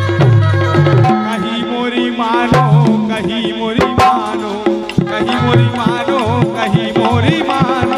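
Bundeli folk music instrumental passage: hand-drum percussion with a melody line that wavers in pitch over it from about two seconds in.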